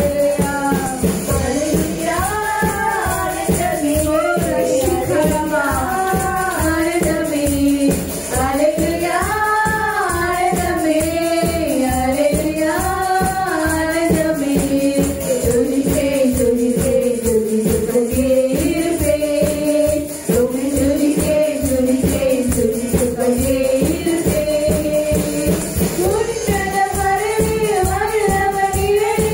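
Praise and worship song: voices singing a flowing melody over band accompaniment with a steady, busy beat.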